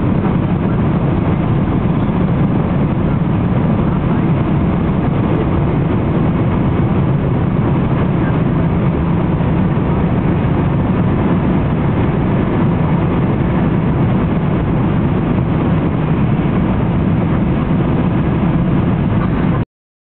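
Cabin noise of a Boeing 767-300 at takeoff power, heard from a window seat over the wing: a loud, steady low rumble of the jet engines and rushing air through the end of the takeoff roll, lift-off and initial climb. It stops abruptly just before the end.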